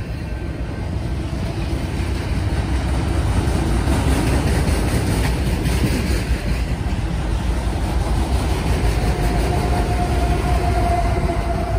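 Freight train of autorack cars rolling past close by: a steady, heavy rumble of wheels on rail that grows a little louder. About nine seconds in, as the rear distributed-power CSX diesel locomotive passes, a steady whine rises over the rumble.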